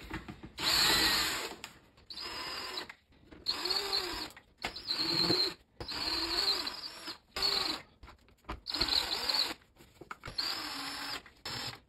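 Cordless drill driver with a 1/4-inch nut-driver bit backing out the screws of a refrigerator's rear access cover. It runs in about eight short bursts with pauses between, its pitch rising and falling within each burst.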